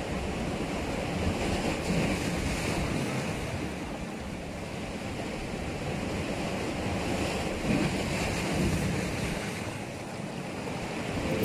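Sea waves washing against a rocky shore, with wind buffeting the microphone; the wash swells and eases every few seconds.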